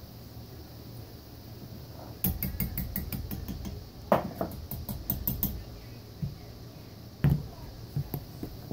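A wire skimmer rattled against the rim of a metal frying pot, a quick string of clinks at about six or seven a second with one louder clang in the middle. Then a single knock on the stovetop about seven seconds in.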